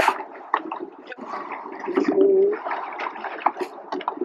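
Water splashing and sloshing around a rowing shell as the oars work through the strokes, with scattered short knocks throughout.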